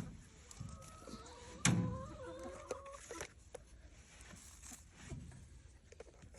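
A chicken in the coop giving a long, slightly wavering call lasting about two seconds, with a dull knock near its middle and scattered small clicks and taps of handling in the coop.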